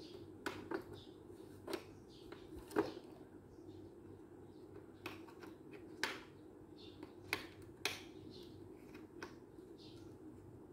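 Hard plastic toy car and its loose wheel being handled, giving irregular sharp clacks and taps as the pieces knock together and against the tiled floor.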